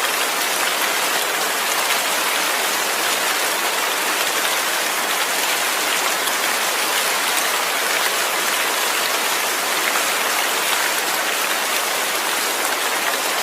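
Steady rain falling, a dense even hiss of drops on a surface without let-up.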